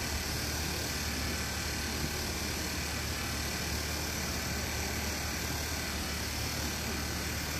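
Steady background noise: a constant low hum with an even hiss over it, unchanging throughout.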